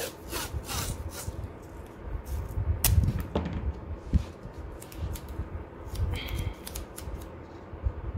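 Hand-handling noises at a worktable: scattered clicks and taps, a sharper click with low thumps about three seconds in, and a brief squeak a little after six seconds, as masking paper and tape are handled around the box.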